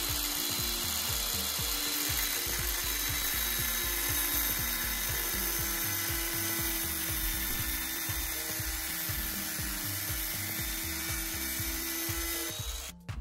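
A power tool running steadily with a grinding hiss over background music with a stepping bass line; the tool cuts off suddenly near the end, leaving the music.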